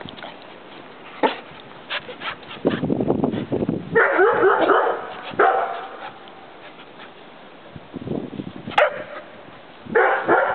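Bouvier des Flandres puppies barking and whining in play, loudest in a wavering stretch about four to five and a half seconds in, with short sharp yips near the end.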